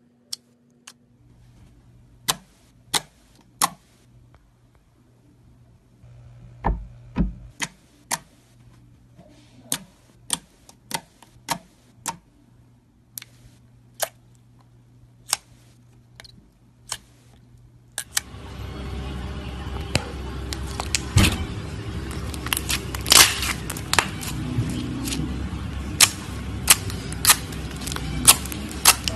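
Clear slime squeezed and pressed by hand, giving scattered sharp clicks and pops over a low hum. About 18 seconds in, a steady hiss comes up and the pops come thicker and louder.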